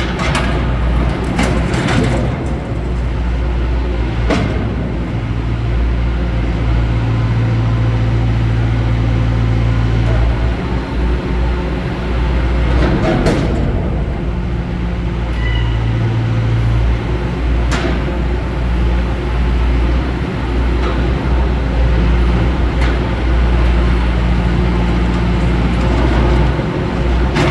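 Caterpillar 420 backhoe loader's diesel engine running under changing load, its note rising and falling several times. Occasional sharp knocks and clanks sound over it.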